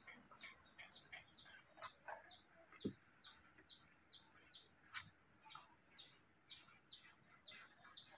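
A bird chirping over and over, a short high chirp falling in pitch about two and a half times a second. A single soft thump about three seconds in.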